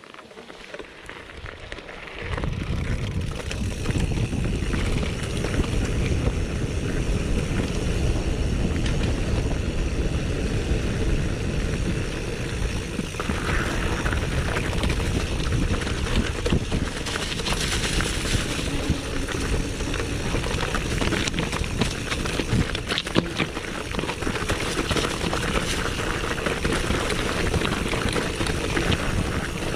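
A mountain bike riding over a gravel and rocky dirt track: steady rumble of the tyres and wind on the microphone, with frequent small knocks and rattles from the bike. The rumble comes up sharply about two seconds in, as the bike gets moving.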